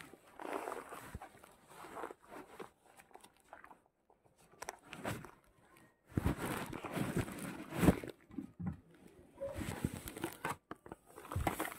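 Handling noise: a fabric sleeve rustling and rubbing against the microphone, with irregular bumps and knocks, heaviest a little past the middle.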